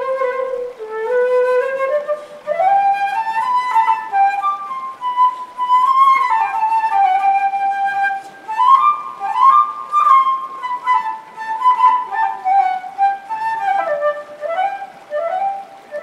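Solo flute improvising a flowing melody, moving note to note up and down with a few quick slides between notes.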